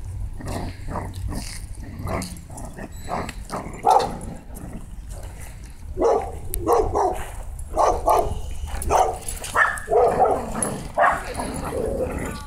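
Dogs barking in play during a tug-of-war over a rope toy. From about halfway through there is a run of short barks, several a second.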